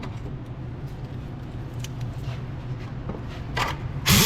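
A pause between power-drill passes: a low steady hum with a few light clicks of parts and tools being handled and a brief scrape about three and a half seconds in. Near the end the drill spins up again with a rising whine.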